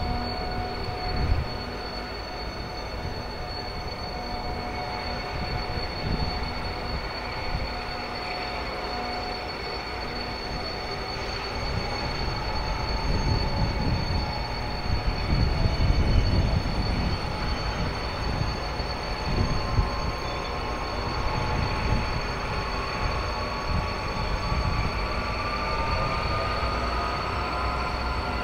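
Class 232/132 'Ludmilla' diesel locomotives, with Kolomna V16 diesel engines, working a loaded tank-wagon train as they approach under power. A steady engine rumble swells about halfway through, and over the second half a whine slowly rises in pitch.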